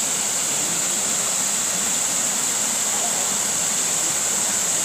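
Small waterfall pouring into a rock pool: a steady rushing of water, with a constant high-pitched hiss over it.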